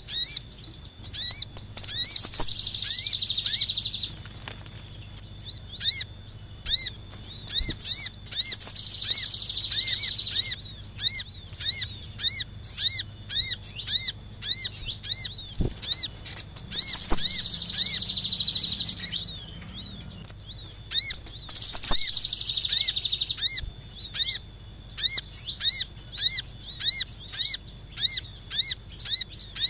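Small songbirds calling, recorded for use as a bird lure: a high, arching chirp repeated about twice a second, broken four times by louder chattering runs of about two seconds each.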